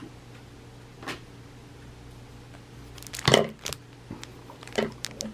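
Baseball cards being handled and sorted on a tray table: sharp clicks and taps. One comes about a second in, the loudest cluster about three seconds in, and a few more near the end.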